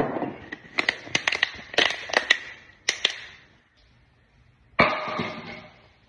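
Plastic water bottle charged with aerosol spray: a sharp crack, a quick run of clicks and crackles, then a loud pop just before five seconds in that trails off in a short hiss.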